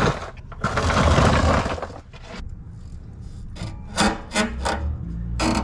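Hand-tool work on the underside of a vehicle: a rasping scrape lasting about a second, then a quick run of sharp metallic clicks a little past the middle.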